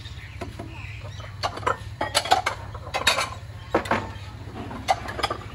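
Metal ladle, strainer and utensils clinking and knocking against a stainless steel soup pot and bowls: a string of sharp clinks with short ringing, more of them in the second half, over a steady low hum.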